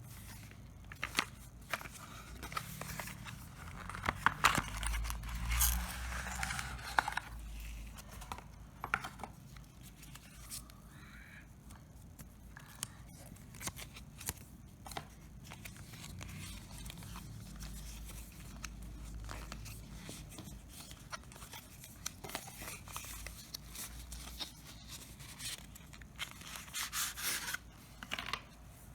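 Packaging being handled and opened: scattered clicks and rustles of cardboard and plastic, with louder stretches of tearing and crinkling about five seconds in and again near the end.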